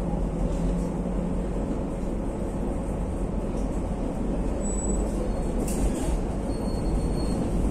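Madrid Metro Line 9 train 8427 running along the line: a steady rumble of wheels and traction, with a couple of brief, faint high tones in the second half.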